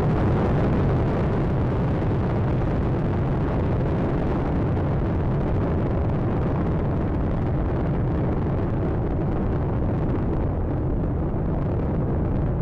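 Space Shuttle Atlantis climbing after liftoff: the steady low rumble of its two solid rocket boosters and three main engines, with the upper hiss slowly thinning in the last few seconds.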